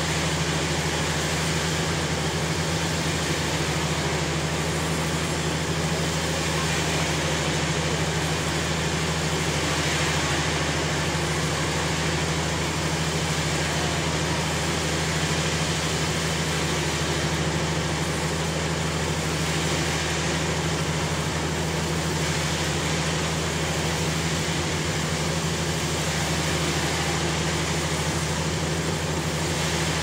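Sawmill machinery running steadily: a constant low engine hum under an even rushing noise, with no change in pace.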